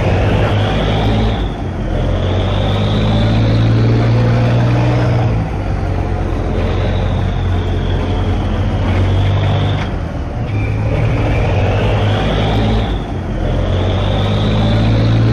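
A ship's engine drones loudly and steadily under rushing wind and sea noise. A whistling tone rises and falls several times.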